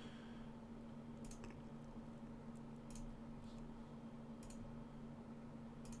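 Faint computer mouse clicks, several spread out, as knife-tool cut points are placed one by one, over a low steady hum.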